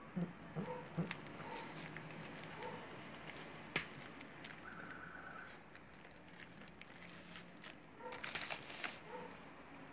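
Faint handling sounds of a cardboard CD box being opened and its contents slid out: scattered small clicks and scrapes, one sharper click a little before the middle, and a short stretch of plastic-wrap crinkling near the end.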